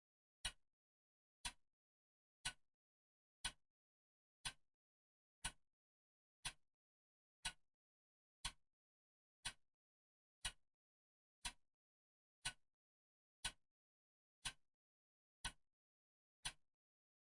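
Clock ticking steadily once a second, each tick a short sharp click with a brief decay and silence between.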